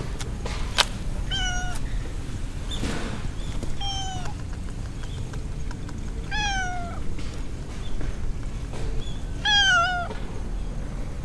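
Silver tabby cat meowing four times, short calls a couple of seconds apart that each fall slightly in pitch, the last one the loudest.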